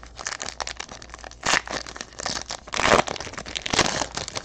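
Trading-card pack wrapper being torn open and crinkled by hand: a run of crackles and rips, loudest about a second and a half in and again around three seconds.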